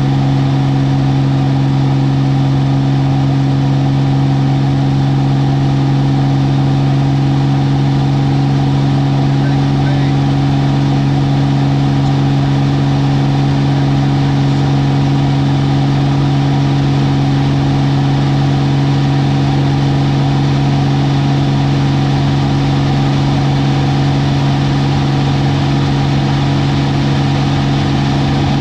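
Aerobatic plane's piston engine and propeller heard from inside the cockpit: a loud, steady drone at unchanging power, with air noise over the canopy.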